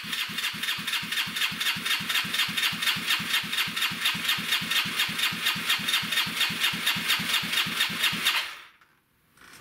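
Electric starter cranking the 1985 Honda Elite 150's single-cylinder four-stroke engine, with no muffler fitted, in an even chug of about five compression strokes a second. The engine turns over but does not catch, and the cranking stops abruptly near the end.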